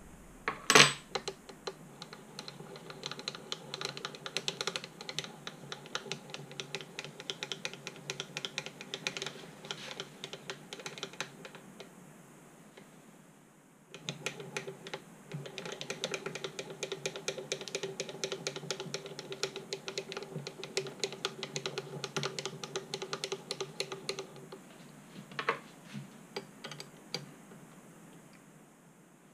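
A single sharp tap on the machine vice, then the Proxxon FF 230 mini mill's table being cranked across by its handwheel: a fast run of ticks over a steady tone from the leadscrew and slides. The cranking goes on for about ten seconds, stops, and runs again for about ten seconds.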